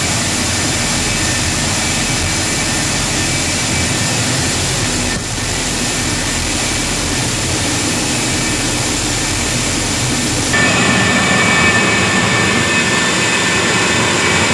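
GE J79 turbojet running steadily at idle, warming up after its start: a continuous roar with a high whine over it. About ten seconds in the sound changes abruptly, becoming slightly louder with a stronger whine.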